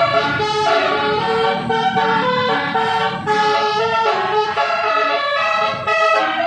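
Telolet basuri musical horn playing a tune: loud, reedy horn notes stepping quickly from pitch to pitch, several sounding together as chords.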